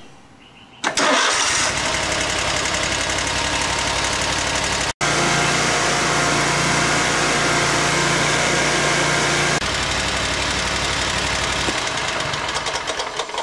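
V-twin riding-mower engine starting up about a second in and then running steadily. Its note drops slightly about ten seconds in, and it dies away near the end.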